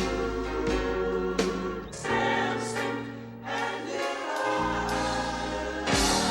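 Gospel-style music with a choir singing over band or orchestral backing: sustained chords with sharp accents, and a loud new chord near the end.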